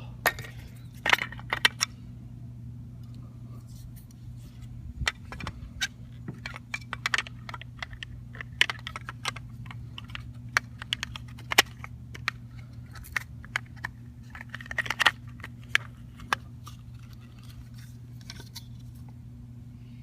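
Irregular small clicks, taps and rattles of plastic and metal door-handle parts being handled and worked loose on a Volvo S40 door, over a steady low hum.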